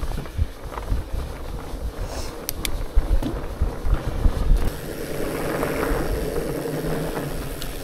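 Salsa Bucksaw fat bike being ridden over a rough, boggy forest track, with wind on the microphone. Low knocks and rattles come from the bumps, with a few sharp clicks. About four and a half seconds in, it settles into a steadier rushing of tyres.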